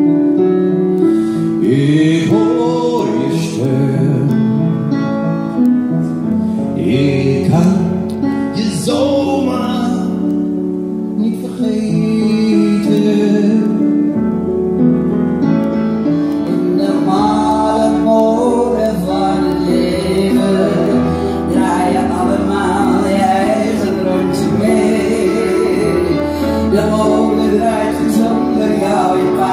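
Live singing with piano accompaniment; from about halfway through, the backing grows fuller in the low end.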